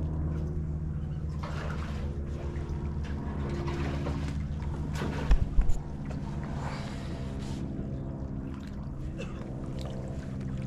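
Water splashing and trickling around a fishing kayak over a steady low hum, with a couple of short thumps about five seconds in.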